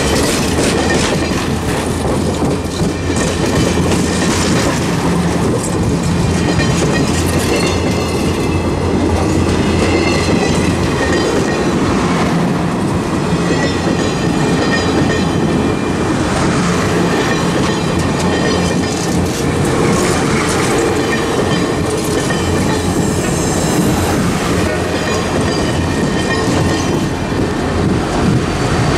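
Stainless-steel passenger cars rolling past close by, their wheels clicking over rail joints and squealing on and off against the rails.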